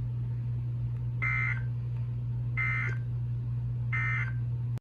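Three short buzzy electronic data bursts about a second and a half apart, over a steady low hum: the Emergency Alert System end-of-message code closing the severe thunderstorm warning.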